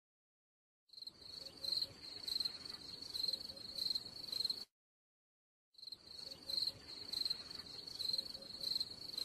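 Insects chirping in a steady, pulsing high trill like crickets. It starts about a second in and drops out to dead silence for about a second in the middle.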